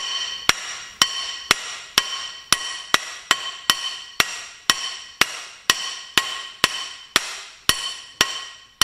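Hammer tapping a twin-disc clutch onto its shaft: steady metal blows about two a second, each one ringing briefly.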